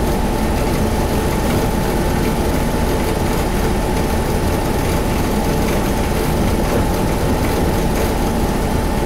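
Hino Blue Ribbon HT (KC-HT2MMCA) bus's M10U diesel engine idling at a standstill, heard inside the passenger cabin as a steady low rumble with a thin steady whine above it.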